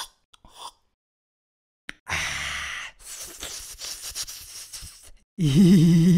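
A man slurping a drink from a steel tumbler, then smacking and licking his lips in a run of small clicks. Near the end comes a long, wavering voiced sigh.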